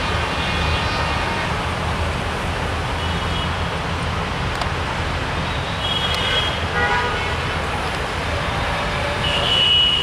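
Steady traffic din with several short, high horn toots over it, the loudest near the end.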